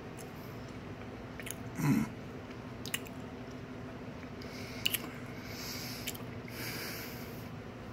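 A man's mouth tasting a spoonful of hot sauce: wet lip smacks and mouth clicks, with a short low vocal sound about two seconds in, the loudest moment, and a few breaths.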